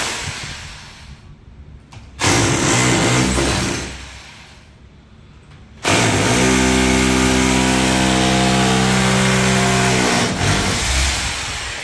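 Electric power drill run in bursts: a short run about two seconds in and a longer, steady run of about four seconds from six seconds in, each trailing off as the motor spins down.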